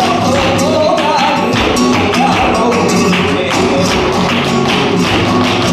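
Live flamenco alegrías: a flamenco guitar strumming, with steady, rhythmic palmas (hand clapping) marking the beat. A singer's wavering sung line is heard over the first second or so.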